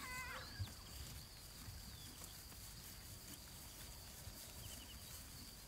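Faint open-grassland evening ambience: a steady high insect trill with a few soft bird chirps. Right at the start comes a short quavering call, a whinny from the grazing wild horse herd.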